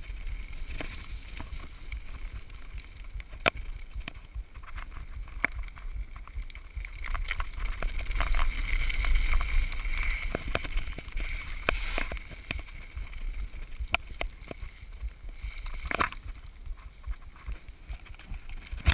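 Mountain bike descending a wet, rough trail at speed: wind rushing over the microphone and tyres rumbling over stones and gravel, with scattered sharp clicks and knocks as the bike rattles over bumps. The rush grows loudest about eight to eleven seconds in.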